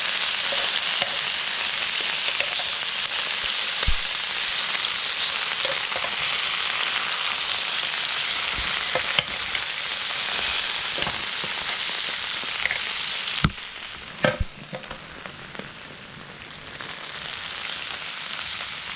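Chicken wings sizzling on a George Foreman electric contact grill, a steady hiss broken by a few sharp clicks. About two-thirds of the way through, a loud knock comes, after which the sizzling drops much quieter and then slowly builds again.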